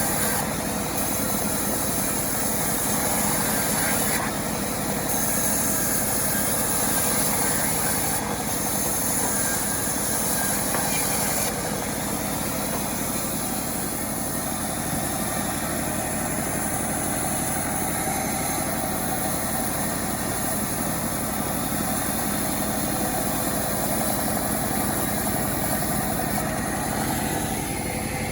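Engine of a homemade chainsaw running steadily, its sound shifting a few times in the first dozen seconds.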